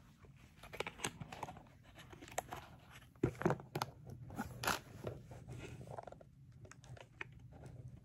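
Rustling and handling noise with scattered sharp clicks and knocks, the loudest cluster of knocks between about three and five seconds in.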